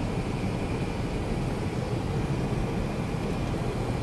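Steady road noise inside a moving vehicle's cabin: a low, even rumble of tyres and engine.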